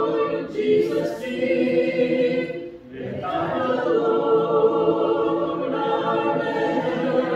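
A congregation singing a hymn a cappella, with no instruments, in long held notes. There is a short pause for breath between phrases about three seconds in.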